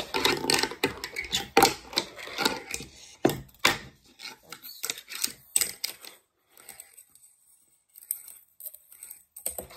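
Fingerboard clacking and tapping on a hard surface in quick, irregular clicks, dense for the first few seconds and then sparser, as the freshly tightened trucks are tried out.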